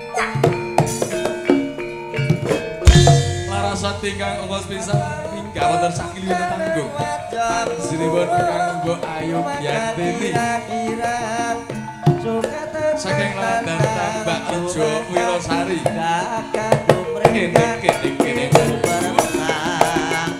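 Javanese gamelan music accompanying a tayub dance: kendang hand drums drive a brisk rhythm over the interlocking tones of bronze metallophones, with a singer's voice in places. A heavy drum stroke stands out about three seconds in.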